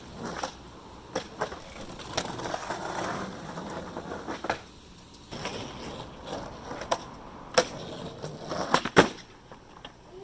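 Skateboard rolling on pavement, wheels rumbling, with several sharp clacks of the board striking the ground, the loudest about nine seconds in.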